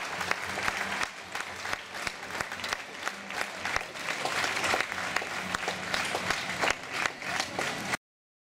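Audience applauding, many hands clapping steadily; it cuts off suddenly near the end.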